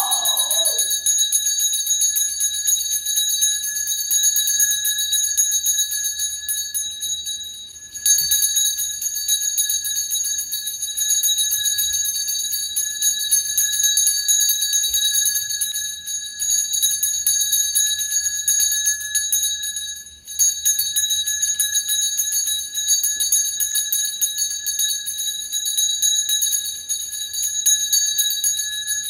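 Small handheld ritual bell shaken continuously, giving a steady high, bright ringing made of rapid strikes. The ringing breaks off briefly about eight seconds in and again about twenty seconds in.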